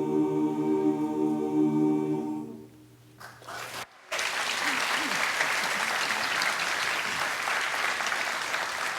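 An a cappella barbershop chorus holds the final chord of a song, and the chord dies away about two and a half seconds in. After a short pause the audience applauds steadily.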